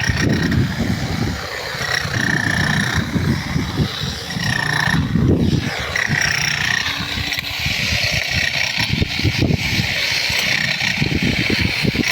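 A drilling machine running, with an uneven low rumble and knocking and a faint high whine that comes and goes.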